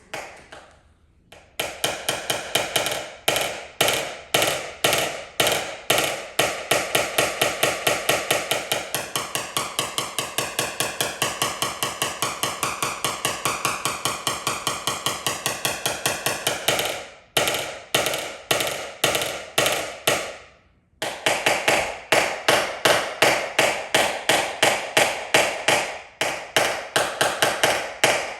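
Small hammer tapping rapidly and steadily on a vehicle's sheet-metal panel, about four light ringing strikes a second, as in tapping down a dent during paintless dent repair. The tapping thins out about 17 s in, stops briefly, then starts again about 21 s in.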